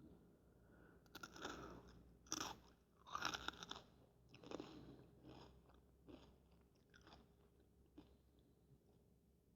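Close-up chewing of Fritos corn chips: a run of crisp crunches in the first few seconds, thinning to fewer, softer chews toward the end.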